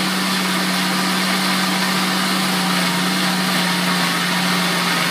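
Blender motor running steadily, a loud even hum with a rushing whir, chopping herbs, onion and pepper into chimichurri sauce.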